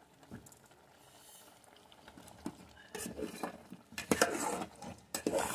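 Metal spoon stirring a stew in a metal pot, scraping and clinking against the pot's sides and bottom. It starts about three seconds in, as a run of quick knocks and scrapes.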